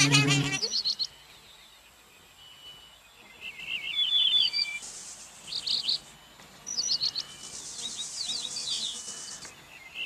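Birdsong as a cartoon sound effect: groups of short high chirps and quick trills, repeated several times, with stretches of high hiss under some of them. A brief voiced cry sounds right at the start.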